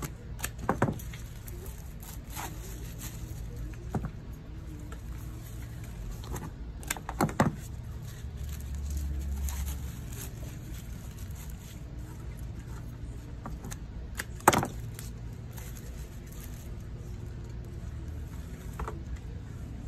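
Florist's hand pruners and leatherleaf fern stems being handled against a glass vase and wooden work table: a few sharp clicks and knocks, a double one about a third of the way in and the loudest about two-thirds through, over a steady low hum.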